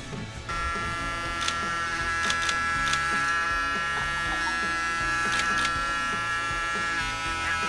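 Electric hair clippers buzzing steadily as they cut through hair, starting about half a second in.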